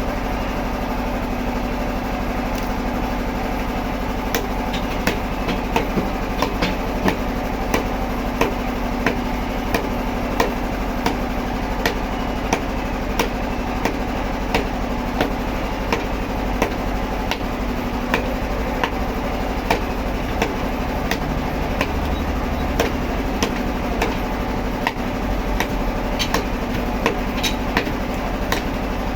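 Machinery running steadily with frequent sharp knocks, about one or two a second.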